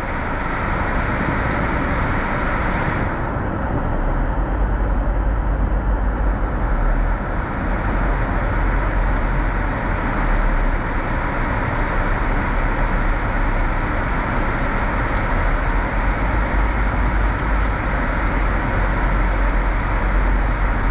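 A car driving slowly, heard from inside the cabin: steady engine and road noise, with a deep rumble that sets in a few seconds in.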